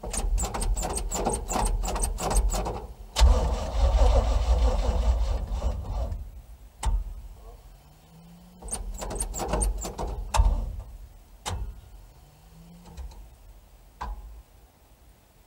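1978 Chevrolet K30 truck's engine being cranked by the starter on a cold start, chugging over at about three to four beats a second, then a louder, rougher stretch. After a pause it is cranked again in shorter tries with sharp clicks between them. It does not settle into running, and the owner goes on to a second attempt.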